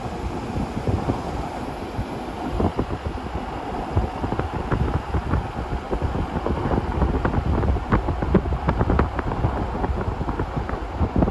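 Wind buffeting the microphone over a steady low rumble, with many scattered light clicks and ticks, thickest in the second half.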